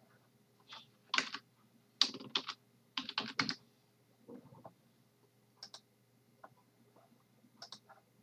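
Typing on a computer keyboard: a quick run of keystrokes about one to three and a half seconds in, then a few single clicks spaced out through the rest.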